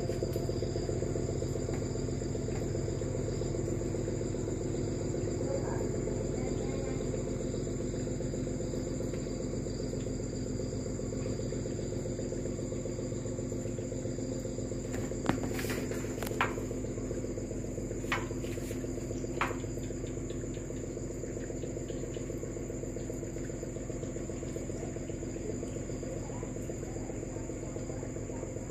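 Crickets trilling steadily at night over a low steady drone, while the rumble of distant thunder dies away in the first seconds. Four sharp clicks come near the middle.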